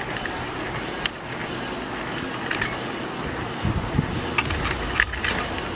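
Small electric drive motor and plastic gearing of a 3D-printed PLA RC tractor running as it drives and steers, with several sharp clicks scattered through.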